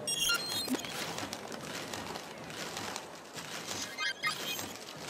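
Crowd noise in a large hall at a breakdance crew's stage show: a steady haze of audience sound with scattered claps and a few brief high-pitched sounds near the start and about four seconds in.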